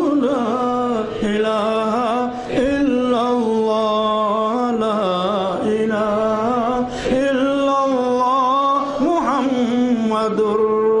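A man's solo voice chanting a hamd with no instruments, in long held notes that waver and bend in ornaments.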